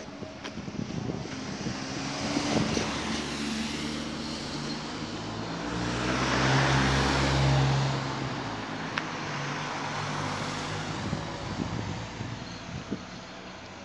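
Cars passing close by on the road: engine hum and tyre noise swell up and peak about six to eight seconds in as a small car goes past, then a second car passes more quietly.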